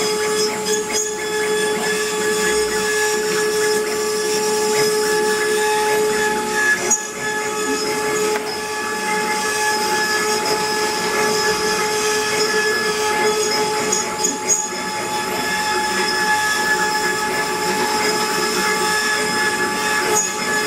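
CNC wood-carving router running: a steady high-pitched spindle whine over a continuous hiss, with brief dips about a third and two thirds of the way through.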